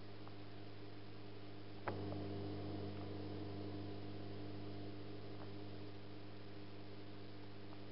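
A steady low electrical hum over faint hiss. There is one sharp click about two seconds in and a few faint ticks.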